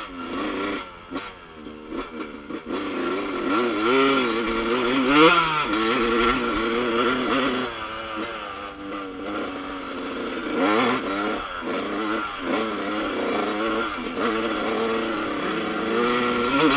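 Yamaha YZ 125 two-stroke dirt bike engine heard from on board while riding, its pitch rising and falling again and again as the throttle opens and closes, with the strongest climbs about five seconds in and near the end.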